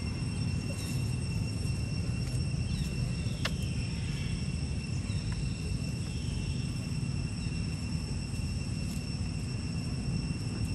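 Outdoor ambience: a steady low rumble with a continuous high-pitched insect drone above it, and a single sharp click about three and a half seconds in.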